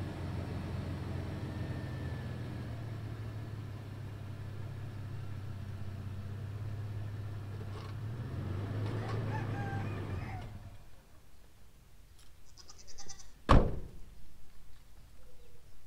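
Toyota FJ Cruiser's V6 engine running as the SUV is moved a short way, shutting off about ten seconds in. A few seconds later comes a single loud knock, with faint farm-animal calls in the background.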